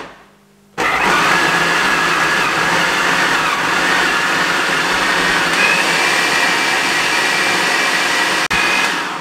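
Electric food processor motor running at speed, chopping slices of bread into crumbs. It starts about a second in and runs steadily, cuts out for an instant near the end, then winds down.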